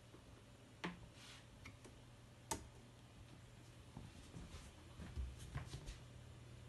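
A few sharp, isolated clicks, the loudest about two and a half seconds in, then a cluster of softer knocks and clicks near the end, over a steady low hum.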